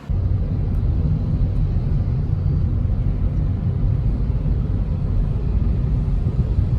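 A car in motion: steady, loud low road and engine rumble with no separate events. It starts abruptly with the cut.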